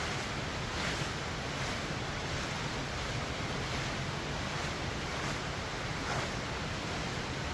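Steady rushing of flowing river water, an even hiss with no break.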